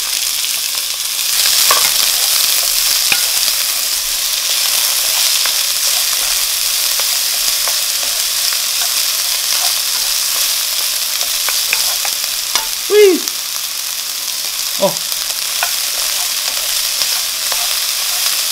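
Chopped onion, jalapeño and green onion sizzling steadily in hot olive oil in a nonstick wok on medium heat. A spatula stirs them, scraping and ticking against the pan. A short pitched squeak comes about two-thirds of the way in.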